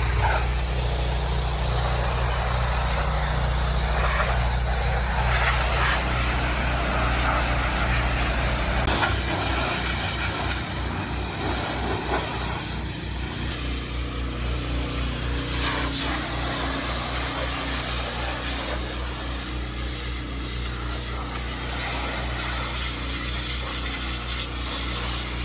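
Pressure washer spraying, a steady hiss of the water jet over a steady engine hum. A low pulsing sets in about nine seconds in.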